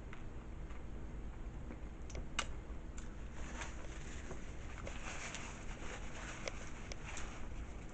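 Faint chewing of a mouthful of nachos: scattered soft crunches and mouth clicks, with one sharper click about two and a half seconds in, over a low steady hum.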